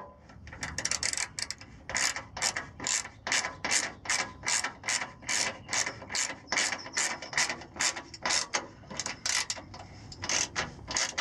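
Hand ratchet wrench clicking in quick back-and-forth strokes, about two to three a second, as a bolt is snugged down. The clicking starts about half a second in.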